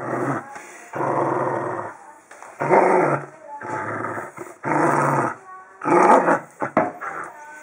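Dachshund growling in a string of growls, each about a second long, as it tugs and shakes a rope toy in play.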